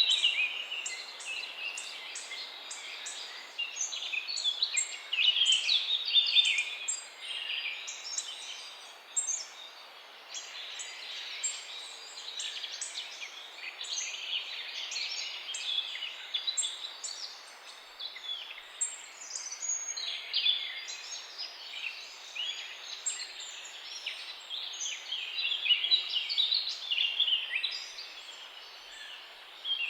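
A chorus of many songbirds chirping and trilling at once, a dense overlapping stream of short high-pitched calls that swells and thins in waves.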